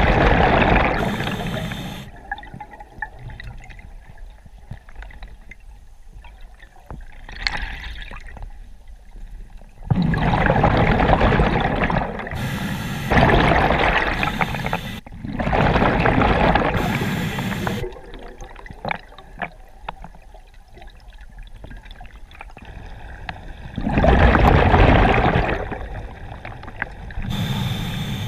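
A scuba diver breathing through a regulator underwater: loud bubbly gurgling bursts of exhaled air, each a second or two long and several seconds apart, with short hisses of inhalation between them.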